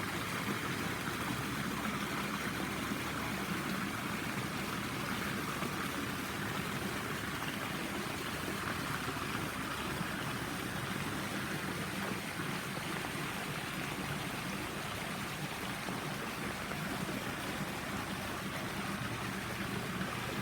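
Steady sound of running water, even and unbroken, with a faint low hum underneath.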